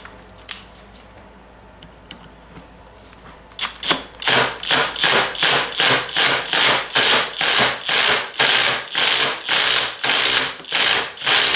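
A tool driving a hex bit against a stuck set screw in an engine's crankshaft pulley. After a few faint clicks, it breaks into a steady run of short, loud rattling bursts, about two and a half a second, as the screw is worked loose.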